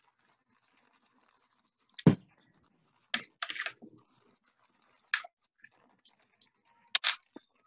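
Scattered short clicks and knocks of handling on a worktable. The loudest comes about two seconds in, a small cluster follows a second later, and there are a few more near the end.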